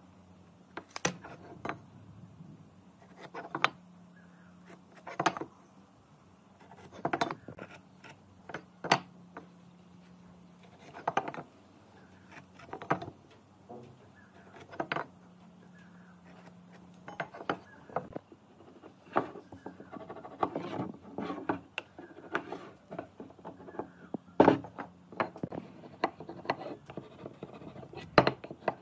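Hand tools working solid wood: sharp knocks about every two seconds, turning after about two-thirds of the way into a quicker mix of knocks and rubbing, over a low steady hum.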